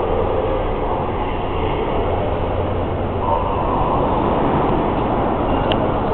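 Steady background din of a railway station hall, with indistinct voices mixed in and a short click near the end.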